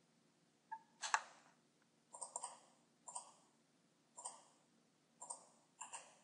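Faint computer mouse clicks, about one a second, some in quick pairs, the loudest about a second in.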